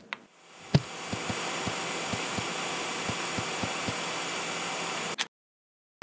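Hair dryer switched on with a click, its fan rising to a steady rushing noise. Regular low knocks come about three times a second throughout, and it cuts off suddenly with a click about five seconds in.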